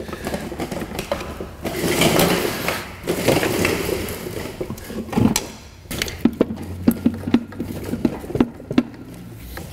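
Screwdriver prying and scraping steel against the aluminium at the joint between a Mini Cooper S (R56) N14 engine and its transmission bell housing, working the gearbox loose from the engine. A heavy clunk comes about five seconds in, then a run of short, sharp metal knocks.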